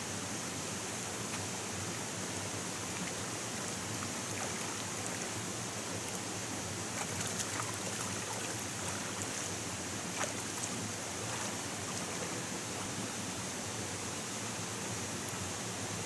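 Steady rush of running water, with a few faint ticks around the middle.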